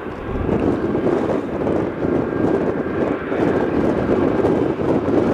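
Boeing 737-800's twin CFM56-7B turbofan engines running at takeoff power as the jet starts its takeoff roll. A steady, noisy jet sound that grows a little louder over the first second, then holds.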